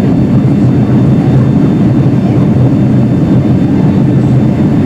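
Steady loud cabin noise inside a Boeing 757-300 airliner in flight: a low, even rumble of the jet engines and airflow heard from a passenger seat.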